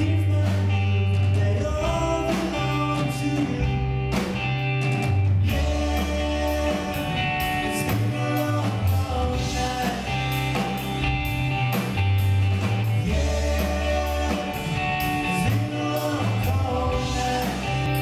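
A rock band playing live: electric guitars and a moving bass line over a drum kit, with the drummer singing lead.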